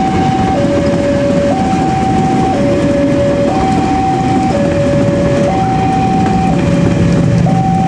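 A level-crossing warning alarm sounding an electronic two-tone alternation, a higher note then a lower note, each lasting about a second, over the steady running noise of a KRL Commuter Line electric train passing close by.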